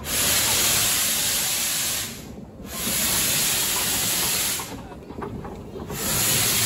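Peckett 0-4-0 steam locomotive letting off steam in three long, loud hisses of about two seconds each, with short gaps between them.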